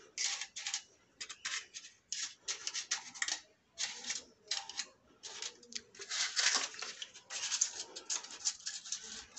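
Paper cupcake liners crinkling and rustling in short, irregular bursts as they are pressed one by one into the cups of a metal muffin tin.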